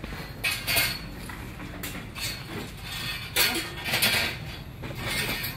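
Several sharp clatters and clinks, like hard objects or metalware being knocked and handled, over a low steady background. They come in a pair near the start and a cluster in the second half, the loudest around the middle.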